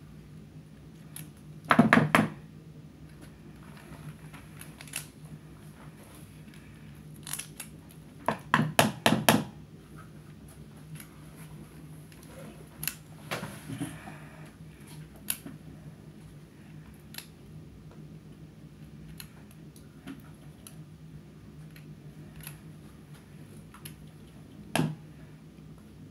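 Scissors blade scraping and clicking inside a hollow apricot pit as the kernel is dug out: scattered scratches and clicks, with a quick run of about five scrapes about nine seconds in. A steady low hum runs underneath.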